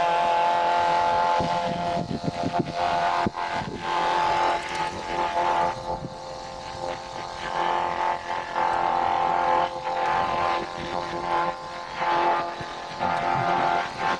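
Steam traction engine running with its flat belt driving a sawmill: a steady whine with scattered knocks and clatter, a little quieter after about six seconds.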